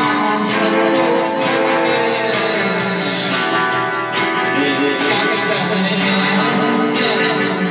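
Guitar-led music: strummed guitar chords with a stroke about once a second.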